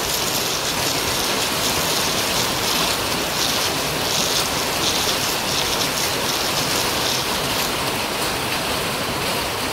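Hand-turned stone grinder grinding soaked rice into batter: the oval stone pestle turning in the stone mortar with a steady, wet gritty swishing.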